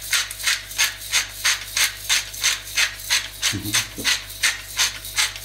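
Hand-held salt mill grinding salt, turned in quick repeated twists that give an even rasping crunch about three times a second.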